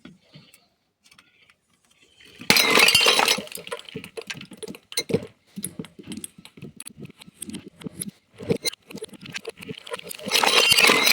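Glass bottle smashing about two and a half seconds in, followed by many separate clinks and crunches of glass pieces, then a second loud smash near the end.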